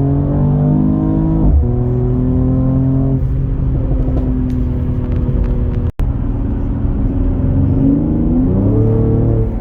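Mercedes-AMG E53's turbocharged inline-six accelerating through the gears: engine pitch climbs, then drops at upshifts about one and a half and three seconds in, holds steady, and climbs again near the end. The sound cuts out for an instant about six seconds in.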